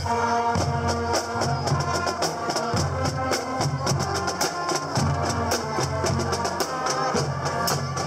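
Marching band playing: a drumline of snare and bass drums beats a steady rhythm, while sousaphones play a low stepping bass line and higher instruments carry the tune.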